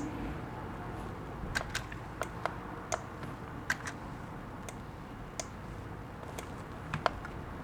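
About a dozen separate, irregular clicks of computer keys and a mouse over a faint steady room hum.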